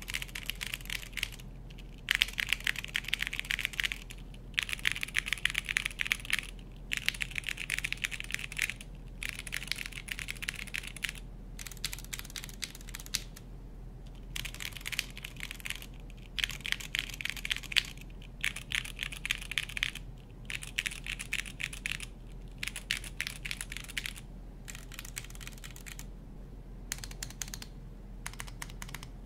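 TKD Cycle 8 tenkeyless mechanical keyboard being typed on: fast runs of keystroke clacks, each a second or two long, with short pauses between.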